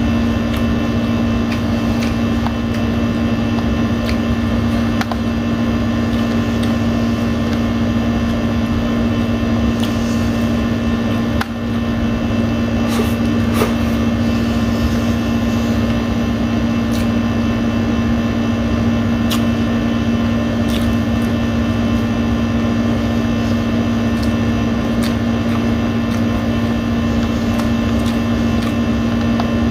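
Air conditioner running with a loud, steady hum, the main sound throughout, with faint clicks and smacks of hand-eating and chewing over it.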